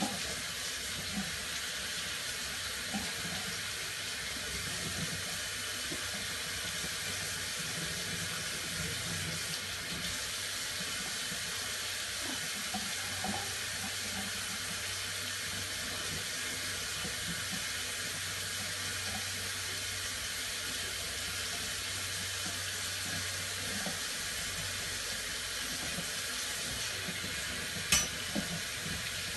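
Tap water running steadily into a kitchen sink while dishes are washed by hand, with small scattered clinks of dishes and one sharper knock near the end.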